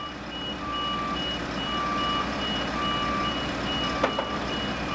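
Two vehicle back-up alarms beeping at once, a lower-pitched one about once a second and a higher-pitched one about twice a second, over a steady low engine rumble. A single sharp knock sounds about four seconds in.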